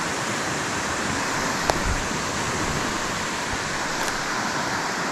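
Steady rush of moving water, with one sharp click about one and a half seconds in.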